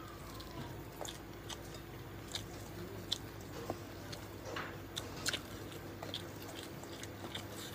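A person eating by hand, chewing close to the microphone. Short wet mouth clicks and smacks come at irregular intervals over a faint steady hum.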